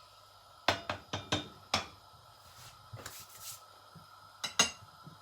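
Utensil knocking against cookware: five sharp clinks in the first two seconds, a brief hiss about three seconds in, then two more clinks near the end.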